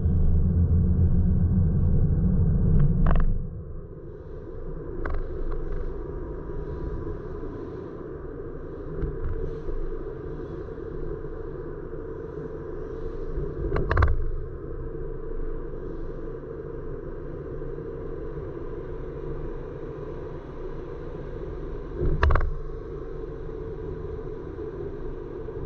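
Road noise inside a moving car: a steady low rumble, loud for the first three seconds and then dropping, broken by a few sharp knocks, the loudest about 14 and 22 seconds in.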